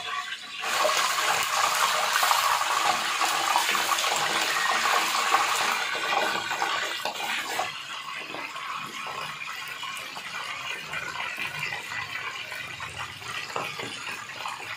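Whole chicken deep-frying in hot oil in a pot on high flame, the oil sizzling and bubbling hard: frying only to brown the skin, not to cook it through. The sizzle comes in suddenly under a second in, is loudest for the first several seconds, then settles lower and steadier.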